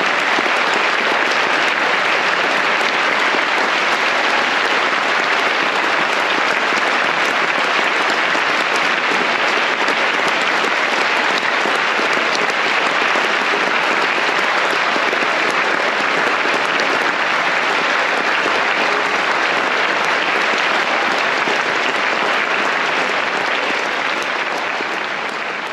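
Concert hall audience applauding: a long, dense ovation of many hands clapping, easing off near the end.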